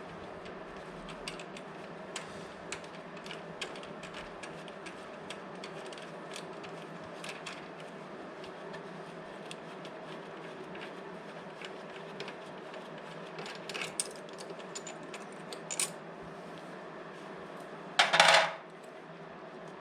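Hand tools and loose bolts clicking and clinking against metal while the front brake calipers are unbolted, with a louder metallic clatter near the end, over a steady hum.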